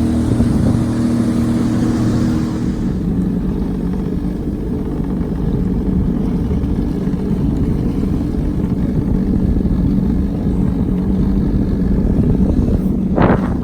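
Jet ski engine running steadily under way, with rushing wind and water noise. Its pitch drops slightly about three seconds in, and there is a short sharp sound near the end.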